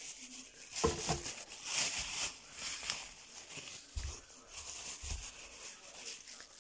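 Plastic bags rustling and crinkling as plastic-wrapped lumps of chalk are moved around inside a plastic carrier bag, with a couple of dull bumps about four and five seconds in.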